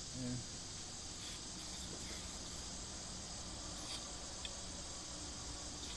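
Steady high-pitched chirring of insects, with a brief low hum just after the start and a few faint small clicks.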